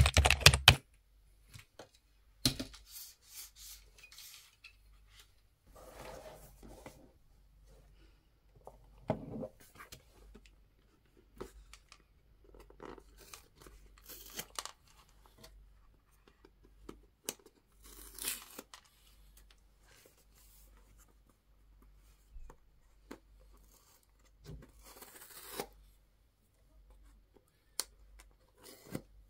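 Paper tamper-seal strips being torn and peeled off a Samsung Galaxy Watch 6 cardboard box, heard as scattered short ripping and rustling rasps as the box is handled. A short, loud burst of sound comes right at the start.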